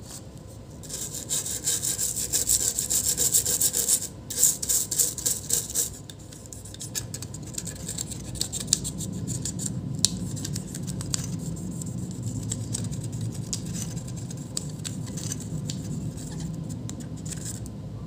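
A cleaning tool scrubbing the surface of an HP EliteBook 840 motherboard, clearing the solder residue where a shorted capacitor was removed. Rapid scratchy strokes are loudest for the first few seconds, then it goes on as softer rubbing with scattered light clicks.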